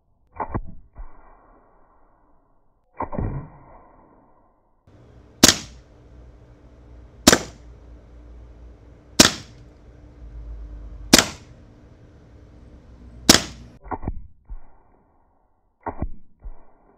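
Evanix Viper .30 caliber PCP air pistol with its moderator fired five times, one sharp crack about every two seconds. Before and after the volley come shorter, duller thuds of pellets striking a ballistic gel target.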